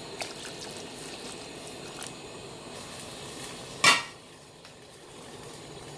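Metal clinks of a metal vessel against a large aluminium cooking pot: small knocks about a quarter second in and again about two seconds in, then one loud clank just before four seconds in, over a steady low hiss of the pot cooking on the stove.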